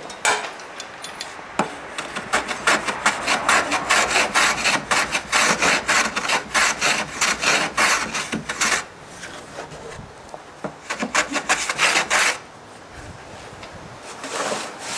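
Hand plane shaving the sawn edge of a plywood boat bulkhead in quick rasping strokes, trimming it clean to the marked line. The strokes run for about the first nine seconds, stop, then come again in a short run past the middle and once more near the end.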